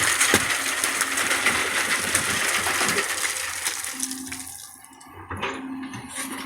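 Excavator working: a dense, noisy clatter and hiss full of small clicks that fades about four seconds in, leaving a quieter stretch with a brief low hum.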